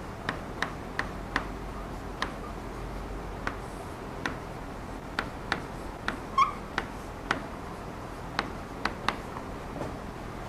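Chalk writing on a blackboard: a run of irregular sharp taps and clicks as each stroke and dot of the letters strikes the board, with one brief squeak of the chalk about six seconds in.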